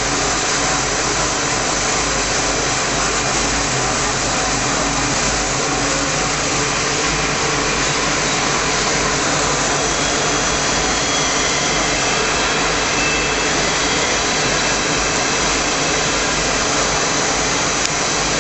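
Steady, loud mechanical whir and hiss of a running stainless-steel mixing tank, its agitator motor churning liquid detergent, unchanging throughout.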